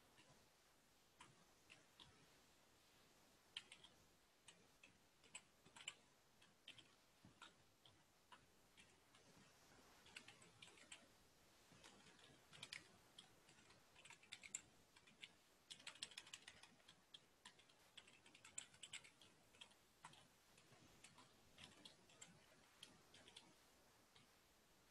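Faint typing on a computer keyboard: irregular key clicks, coming in quicker runs through the middle stretch.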